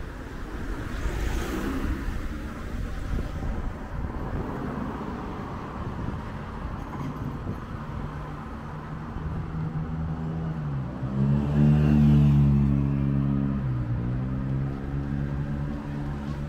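Road traffic at a city intersection: cars driving past, then from about nine seconds in a vehicle engine pulling away, its pitch climbing, dipping twice and climbing again, loudest about twelve seconds in.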